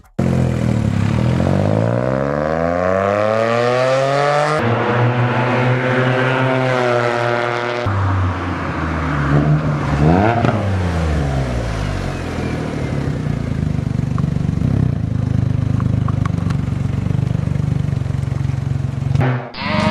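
Smart Fortwo's three-cylinder engine running through a new Doug Thorley header and cat-back muffler, revving up in pitch and then running steadily, in several edited clips.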